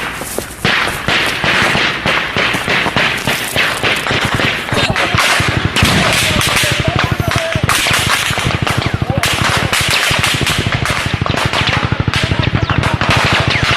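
Sustained heavy gunfire in a firefight: rapid automatic fire with many shots overlapping, dense and unbroken.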